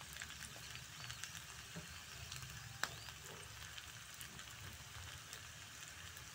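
Tempe, fish and chillies sizzling faintly in oil in a wok, a steady fine crackle, with one sharper click about three seconds in.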